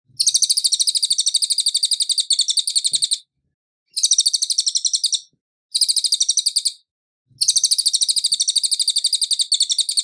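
Cililin songbird singing in clear, high, rapid trills of evenly repeated notes, about ten a second. Four runs of song come in about ten seconds, with short pauses between them.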